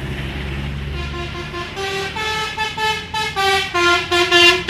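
A bus's telolet horn, a multi-tone musical horn, playing a quick tune of short notes that grows louder toward the end. A low engine rumble is heard before the horn starts.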